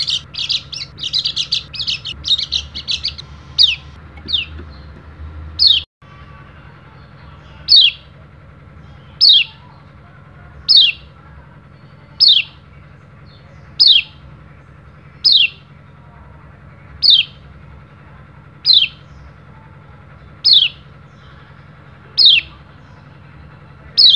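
Pleci (white-eye) calling: a quick run of high twittering chirps for the first few seconds, then, after a brief break, single short downward-sliding 'ciak' calls repeated evenly about every second and a half.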